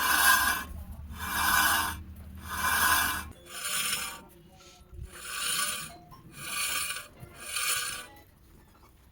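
Seven rhythmic rasping scrapes, about one every 1.2 seconds, each lasting under a second. A low hum sounds underneath for the first three seconds, then stops.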